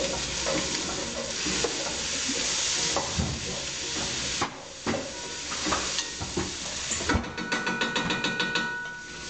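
Diced sweet potatoes and leeks sizzling in a hot stainless steel stockpot while a wooden spoon stirs them, scraping and knocking against the pot. Near the end comes a quick, even run of knocks that leaves the pot ringing faintly.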